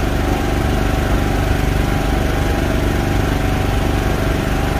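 A fishing boat's on-board engine running steadily: a constant, unchanging drone.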